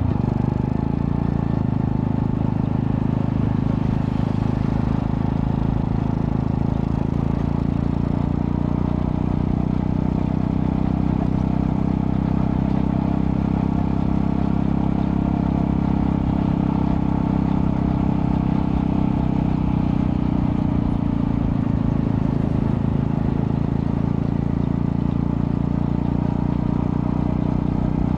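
Honda Astrea Prima-based 110cc street cub's single-cylinder four-stroke engine running through a custom underbelly exhaust with resonator, at a steady, nearly constant pitch.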